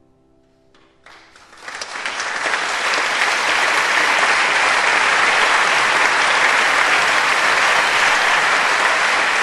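Applause from many hands clapping, swelling in about a second in and then holding loud and steady.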